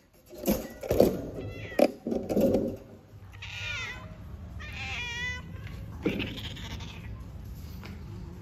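Domestic cats meowing while mating: two drawn-out, wavering meows about three and five seconds in, and a fainter one after. A few sharp knocks come in the first two seconds.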